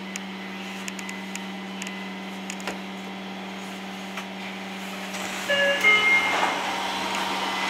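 Tokyo Metro Namboku Line train heard from on board: a steady hum with a few faint clicks. About five and a half seconds in, a run of short, clear tones at several pitches rises over the hum.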